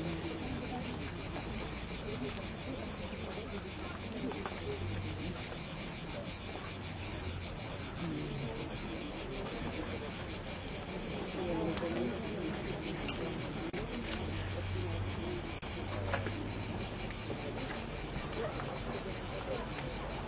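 A steady, high-pitched chorus of insects, a rapid pulsing chirr that carries on without a break.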